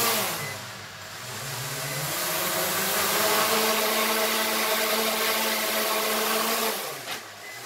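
Hubsan H501S quadcopter's brushless motors and propellers spinning on the ground: a whirring whine with propeller hiss. It falls back in the first second, then builds to a steady run, dips briefly near the end and picks up again. This is a low-RPM start-up in which the owner shows the rear motors acting up with a new motor fitted, a glitch he suspects lies in the speed-controller board.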